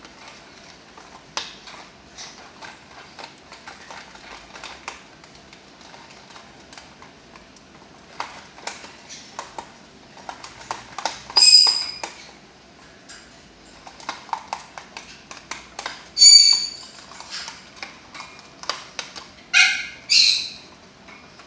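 A corella chewing and tearing at a cardboard box toy with its beak, making a steady run of small crunching clicks and crackles. Four short, loud squawks break in, the first about halfway through and three more in the last few seconds.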